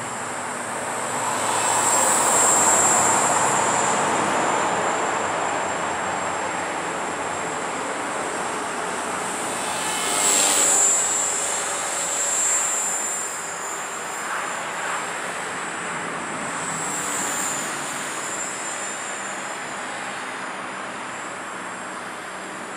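Walkera V450D03 electric RC helicopter in flight: a steady rotor whoosh with a high motor whine. It swells louder twice, about two seconds in and again near ten seconds, then slowly fades as it moves away.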